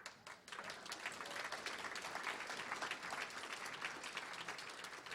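Audience applauding, swelling within the first second and dying down near the end.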